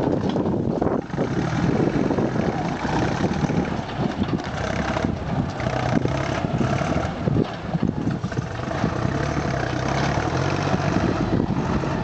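Backhoe loader's diesel engine running steadily, with irregular short noises over it.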